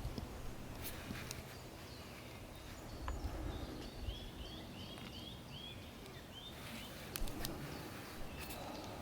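A small bird chirping: a run of about eight short, high, downward-slurred notes, roughly two a second, starting a few seconds in. Under it is low outdoor background noise and a few faint knocks.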